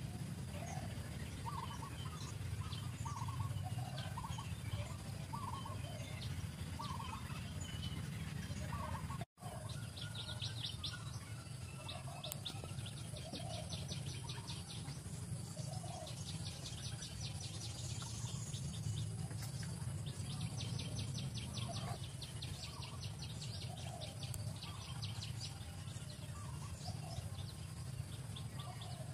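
Outdoor ambience of birds calling, short calls repeating about once a second, over a steady low background hum; from about ten seconds in, fast high pulsing trills come and go in long runs.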